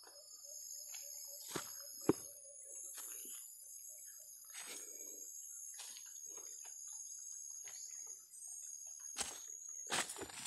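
Footsteps and rustling over leaf litter and stones, with sharp knocks, the loudest about two seconds in and more near the end, over a steady high-pitched chirring of insects.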